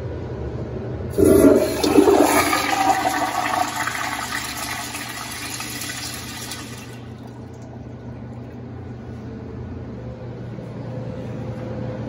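Sloan Dolphin flushometer flushing a toilet that runs on recycled mineral oil instead of water. The valve opens about a second in with a sudden loud rush that eases over a few seconds and cuts off sharply about seven seconds in, leaving a softer steady wash in the bowl.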